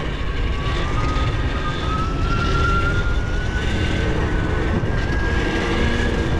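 Electric dirt bike's Zero ZF75-7 motor whining, the whine rising steadily in pitch as the bike gathers speed downhill under regenerative braking only, the motor feeding power back into the battery. A steady rush of wind and road noise runs underneath.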